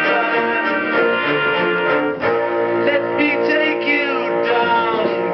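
Guitar-led music from a vinyl record, played on a Hacker Grenadier record player with a Garrard turntable and heard through the player's own speakers.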